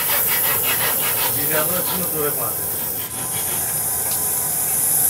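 Russell's viper hissing, a harsh rasping hiss in rapid repeated pulses, strongest in the first two seconds: the snake's defensive warning.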